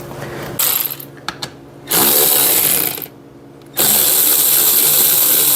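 Power drill-driver spinning out the 7mm screws at the bottom of a car door panel in three bursts. The bursts are short, then about a second, then nearly three seconds, and each spins up quickly at the start.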